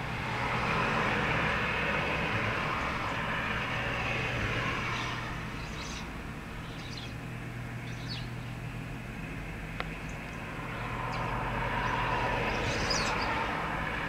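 Background road-traffic noise that swells and fades twice as vehicles pass, over a steady low hum, with a few short high bird chirps in between.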